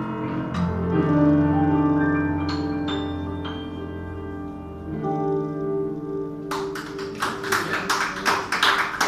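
Grand piano and electric guitar ending a jazz tune, a few last notes over a held final chord left ringing and slowly fading. About six and a half seconds in, audience applause breaks out.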